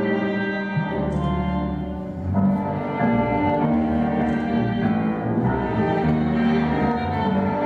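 Tango orchestra music with bowed strings carrying a sustained melody.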